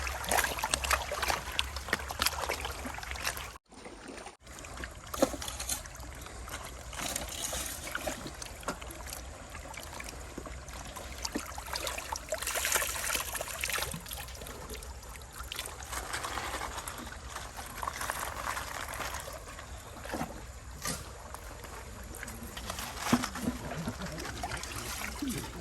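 Water trickling and sloshing, with many small scattered clicks and knocks; the sound drops out briefly about four seconds in.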